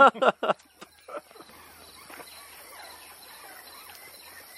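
A short burst of laughter, a few quick 'ha' sounds in the first half-second, then faint outdoor background.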